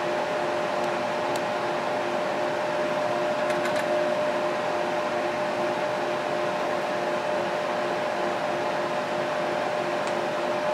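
Water-cooled desktop PC running just after power-on: the steady whir of two San Ace radiator fans and a D5 pump, with a steady whine and a lower tone that pulses rapidly.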